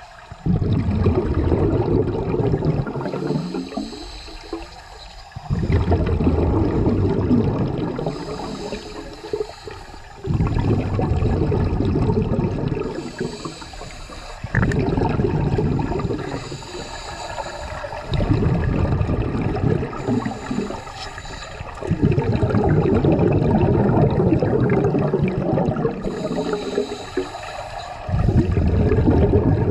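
Scuba regulator exhaust bubbles from a diver breathing out, heard underwater: about seven loud bubbling surges every four seconds or so, with quieter gaps between them while the diver breathes in.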